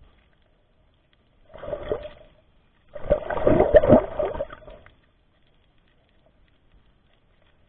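Water gurgling and bubbling, heard underwater through the camera's housing: a short burst about one and a half seconds in, then a longer, louder one from about three seconds to nearly five.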